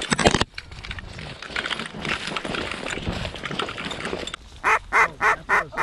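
Footsteps crunching through dry wheat stubble, after a brief loud burst at the start. About four seconds in, a run of about six loud duck quacks, evenly spaced at roughly three a second.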